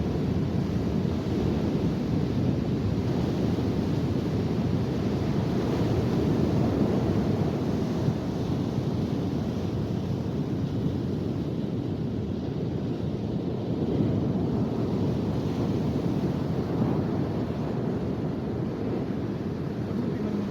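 Steady wind rumbling on the microphone over the continuous wash of ocean surf on a beach.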